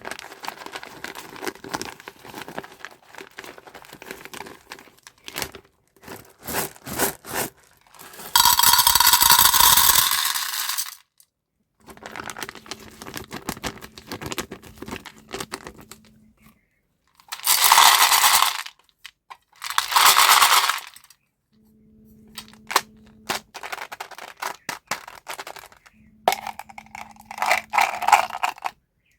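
Hard-shelled M&M's candies clattering and rattling as they are poured and handled, with many small clicks and three longer, loud pours, one about eight seconds in and two close together past the middle.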